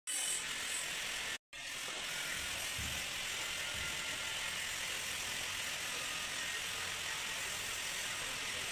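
Steady hissing background noise with no clear rhythm, dropping out to silence for a moment about a second and a half in.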